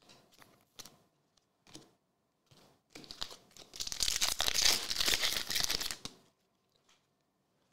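Foil wrapper of a trading-card pack being torn open and crinkled by hand, loud for about three seconds starting about three seconds in. Before it come a few soft clicks of cards being handled.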